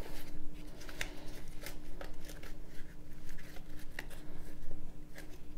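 Rustling fabric and a scatter of light clicks as items are shifted around inside a small bicycle saddlebag, with metal CO2 cartridges and pump parts knocking together.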